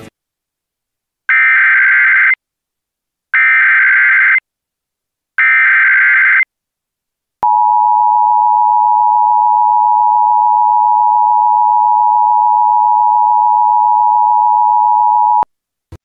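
Emergency Alert System header: three bursts of SAME data tones, each about a second long and about a second apart, then the two-tone EAS attention signal held steady for about eight seconds, announcing the broadcast alert that follows.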